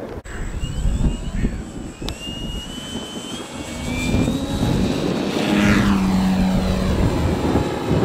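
Radio-controlled model Piper Cub taking off: its motor's whine climbs in pitch in steps as the throttle opens, then drops in pitch as the plane passes close by about five to six seconds in. Wind rumbles on the microphone underneath.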